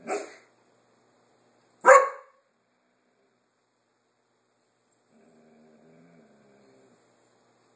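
Dog giving two sharp single alert barks about two seconds apart, the second louder, at something out in the backyard. A faint, low, drawn-out sound follows about five seconds in.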